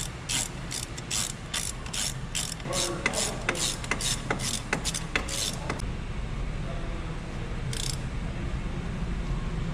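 Hand ratchet clicking in a fast run of strokes while tightening the mounting bolts of a front wheel hub bearing assembly. The clicking stops about six seconds in.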